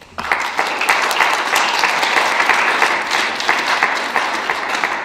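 Audience applauding, breaking out just after the start and easing off near the end.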